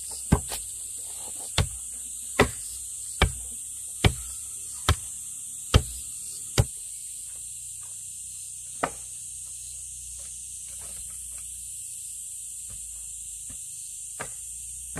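A series of sharp, evenly paced strikes, about one every 0.85 seconds, eight in the first seven seconds, then one more and a faint one near the end. Under them runs the steady high-pitched drone of insects.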